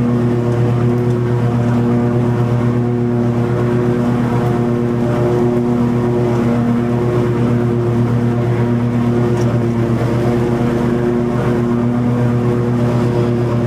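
Toro TimeCutter 50-inch zero-turn mower's engine running steadily under load while mowing long grass, with a constant pitch and only slight wavers.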